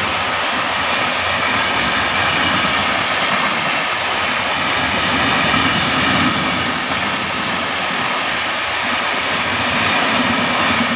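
Passenger coaches of an express train running past close by: a loud, steady rush and rumble of wheels on the rails that carries on unbroken.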